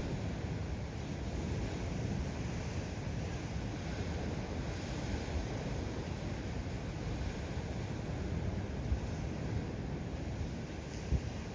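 Gusty wind buffeting the microphone over the steady wash of storm waves at high tide, with two brief bumps in the last few seconds.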